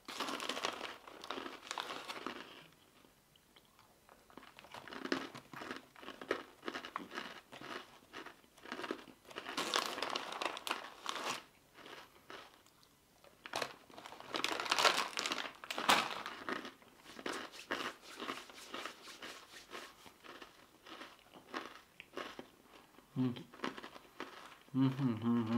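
Crunchy wasabi-coated rice crackers being bitten and chewed, in several bursts of crisp crackling crunches. A short low 'mm' comes from the eater near the end.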